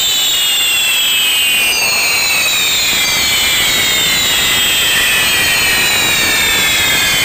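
Maltese ground fireworks (nar tal-art): spinning fire wheels and gerbs pouring out sparks with a loud, steady rushing hiss. Several high whistles ride over it, each slowly falling in pitch, with new ones joining a couple of seconds in.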